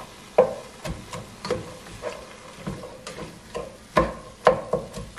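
A plastic slotted spoon stirring ground beef, diced onion and bell pepper in a metal pot, knocking against the pot about twice a second over a faint sizzle of the browning meat.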